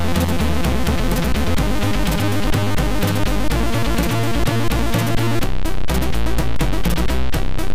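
Commodore 64 SID-chip demo music: a bass line stepping between held notes under busy chip-synth tones. About five and a half seconds in the music changes, with sharp rhythmic percussion hits coming in.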